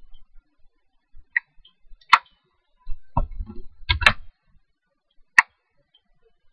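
A few separate computer mouse clicks, two of them close together about four seconds in, with some dull low knocks around the middle.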